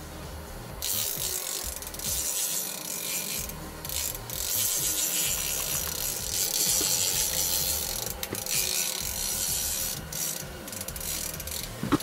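Small spinning reel on an ice-fishing rod ratcheting in long stretches, starting about a second in, with a few short breaks.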